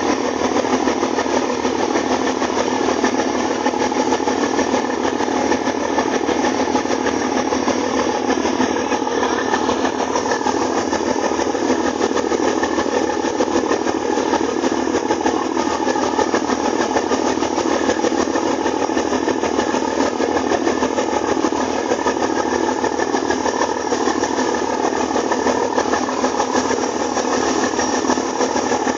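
A boat's engine running steadily under way, mixed with the rush of the churning wake water behind the stern.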